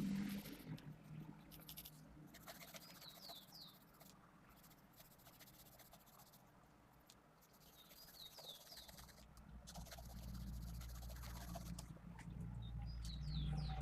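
Faint scratching of a 0.5 mm mechanical pencil on paper during sketching. Short high falling chirps come in quick groups of three, several times, and a low hum comes up in the second half.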